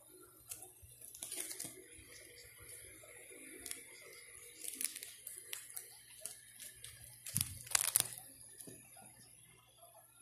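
Clear plastic coin-album pockets crinkling and rustling as coins are handled through them and the album page is moved, with scattered small clicks. The loudest rustle comes about three quarters of the way through.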